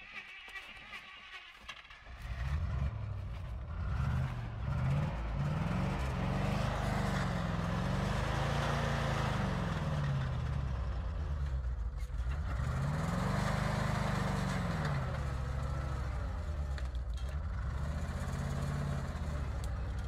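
Heavily loaded logging truck's engine labouring through mud. It comes in loud about two seconds in, its revs rising and falling in long swells.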